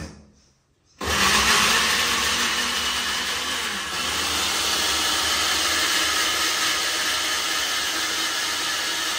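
Countertop blender switched on about a second in, its motor and blades running steadily as they puree a jar of whole strawberries into juice.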